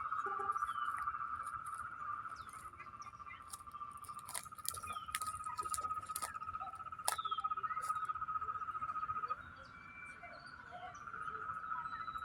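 Frogs trilling: a steady, finely pulsed trill that drops away about nine seconds in and resumes near the end, with scattered short bird chirps and sharp clicks over it.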